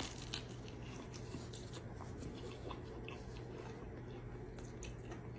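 Faint chewing with scattered small crackly clicks, over a steady low hum.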